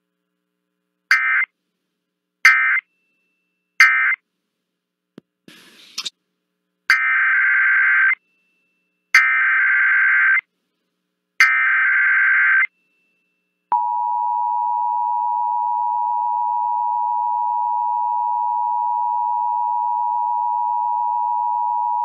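Emergency Alert System SAME data bursts, screeching digital tones. Three short end-of-message bursts close one required monthly test; after a brief click and hiss, three longer header bursts open the next test. About 14 seconds in, the steady two-tone EAS attention signal starts and holds.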